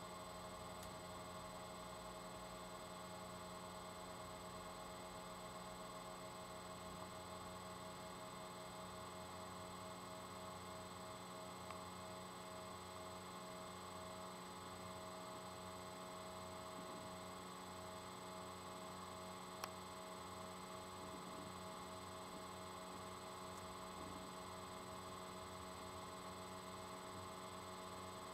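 Faint, steady electrical hum made of several constant tones, with a single faint click about twenty seconds in.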